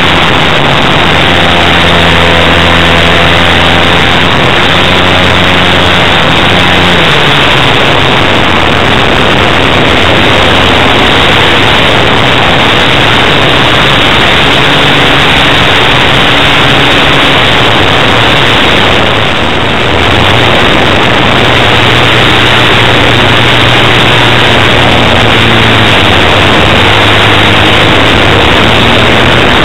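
Four-stroke OS FS-120 Surpass III glow engine of a radio-controlled model aircraft, running in flight and heard through a wing-mounted onboard camera with heavy wind rush. The engine note changes about seven seconds in and the sound dips briefly around twenty seconds in.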